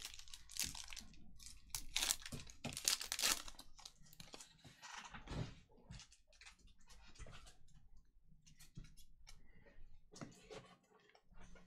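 Foil trading-card pack wrappers crinkling and trading cards being handled, heard as short, irregular crackles and rustles.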